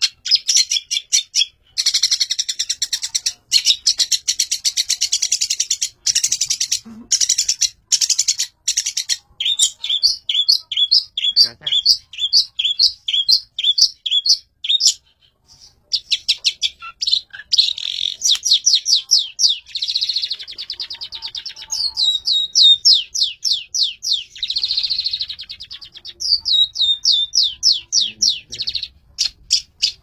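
Long-tailed shrike singing a fast, continuous string of high chirps, repeated sharp notes and quick down-slurred notes, with brief breaks.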